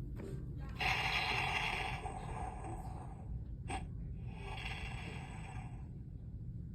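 Two hissing electronic sound effects from the Stormbreaker Strike Thor action figure's built-in speaker. The first lasts about two seconds and the second about a second and a half, with a sharp click between them.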